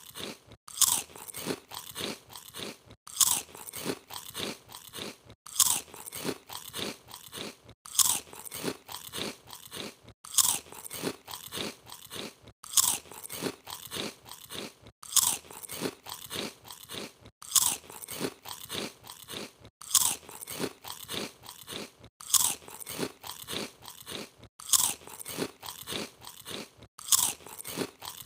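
Crisp potato chips being bitten and chewed: a loud crunching bite followed by several smaller chewing crunches, the pattern repeating about every two and a half seconds.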